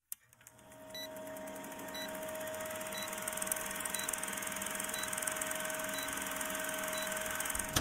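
Vintage film-leader countdown sound effect: a film projector running with a steady hum and crackle, and a short high beep once a second, seven in all.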